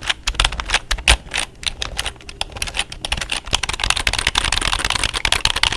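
Typing on a computer keyboard with the fingertips rather than the nails: a dense run of key clacks that grows quicker and busier in the second half.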